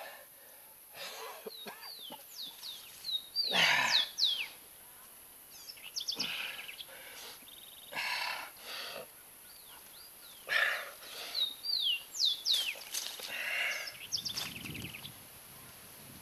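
A man's heavy, gasping breaths come in bursts every two seconds or so, the loudest about four seconds in. Birds call over them in short, falling whistled notes.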